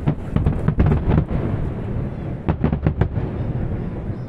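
Aerial firework shells bursting: a rapid volley of bangs in the first second or so, another cluster of bangs a little past the middle, over a low rolling rumble that fades near the end.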